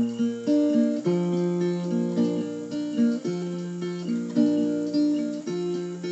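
Acoustic guitar playing a strummed and picked introduction, starting abruptly and sounding repeated chord strokes.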